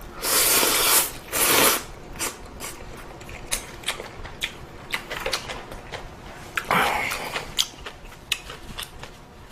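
Close-miked eating of ramyeon noodles: two loud slurps in the first two seconds, a shorter one near the seven-second mark, and many small sharp clicks of chewing in between.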